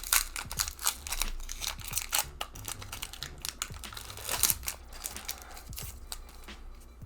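Foil Pokémon booster pack wrapper crinkling and tearing as it is opened, a dense run of irregular crackles that is busiest a little past the middle.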